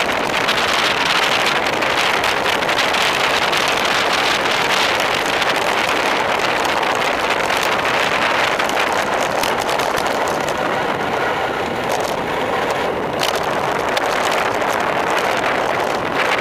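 Wind rushing steadily and loudly over the microphone of a camera on a road bike descending at speed.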